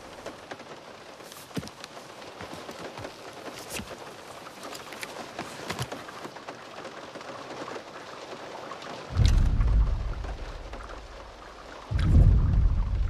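Rain falling on a car roof, then two deep, heavy booms about three seconds apart, the first about nine seconds in and the second near the end. They are the footsteps of an approaching Tyrannosaurus rex in a film's sound design, the tremors that set the water in the dashboard cups rippling.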